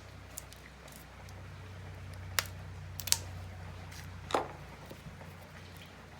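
Plastic wrapping being pulled off a boxed card deck by hand: a few sharp crackles and snaps, the loudest near the middle, over a low steady hum.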